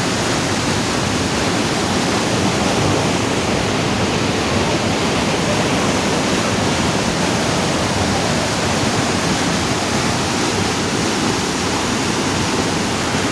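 Waterfall: water falling and splashing in a steady, loud, unbroken rush.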